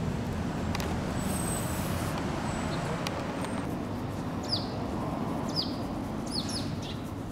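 Steady low hum of street traffic, with a bird giving a few short, quick, falling chirps in the second half.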